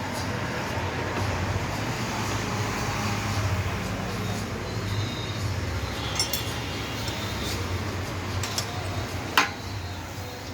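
Steady low hum under a broad background noise, with a single sharp metallic clink about nine seconds in.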